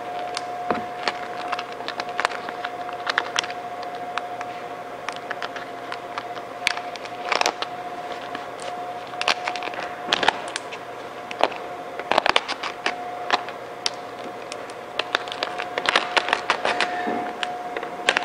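Chrome vinyl wrap film being worked down with a squeegee, giving irregular sharp crackles and ticks as it is pressed and tucked tight into the grille's edges, over a steady hum.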